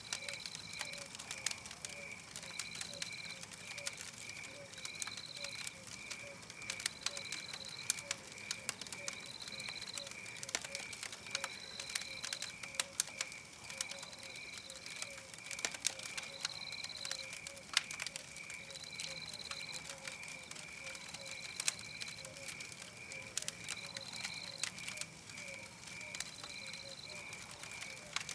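Wood fire crackling with scattered sharp pops, layered with a looped night chorus: a steady chirp pulsing about two and a half times a second, a higher call of about half a second repeating every two seconds, and a faint lower pulsing note.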